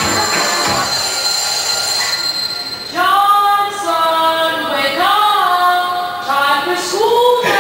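Dance music playing over the hall's sound system; about three seconds in, a high melody line with long sliding, bending notes comes in and carries on to the end.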